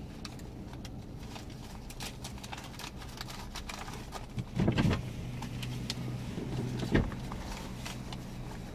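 Dodge Grand Caravan engine idling steadily, heard from inside the cabin, with raindrops tapping on the windshield and roof. A louder thump comes about 4.5 seconds in and a sharp knock about 7 seconds in.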